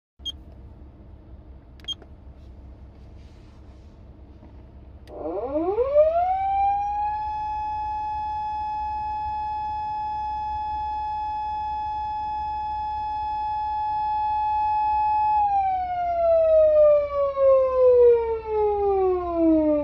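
PATLITE SAP-500BK electronic siren amplifier in foot-pedal mode, sounding a wind-up wail: after two sharp clicks, about five seconds in the tone climbs to a high steady pitch, holds it for about eight seconds, then slides slowly down, beginning to climb again at the very end.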